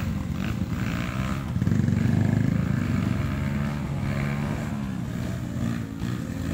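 Trail motorcycle engine revving up and down, loudest about one and a half to two and a half seconds in.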